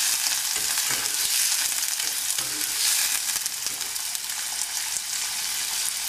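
Chopped radish and onion sizzling steadily in hot oil in a kadhai. A spatula stirs and scrapes through the pieces for the first few seconds, then the sizzle carries on alone.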